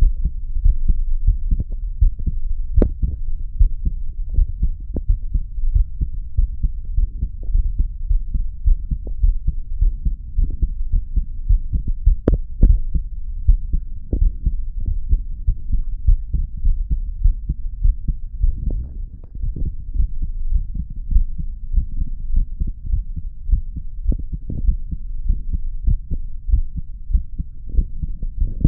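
A man's heartbeat heard through a stethoscope, a steady, relaxed run of low thudding beats. Two sharper clicks stand out, about three seconds in and about twelve seconds in.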